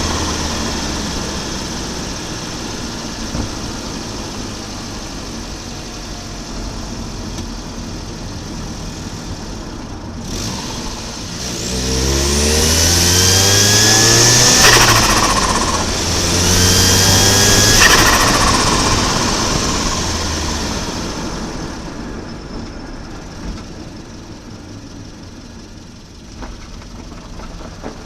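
Volvo 940 Turbo's B230FT turbocharged four-cylinder accelerating hard twice, with a rising turbo whine on each pull. Each pull ends abruptly as the throttle closes, the point where the turbo flutters, and the engine then fades away.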